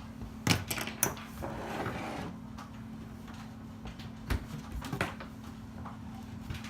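A few scattered light clicks and knocks of small objects being handled and set down on a work surface, over a steady low hum.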